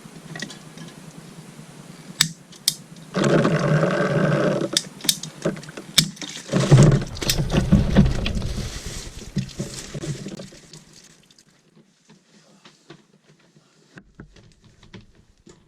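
A CPVC water pipe being cut through: a few knocks and clicks, then a loud, steady cutting noise starting about three seconds in that runs for about seven seconds, growing heavier about halfway, before dying away into faint clicks.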